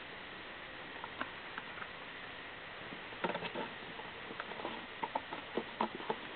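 Six-week-old golden retriever puppies moving about: scattered light taps and scuffles of small paws. The taps come sparsely at first, then in a quick cluster about three seconds in and again near the end.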